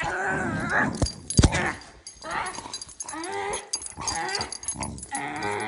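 A dog growling and whining while being play-fought, its calls rising and falling in pitch. Two sharp knocks about a second in, the second the loudest sound.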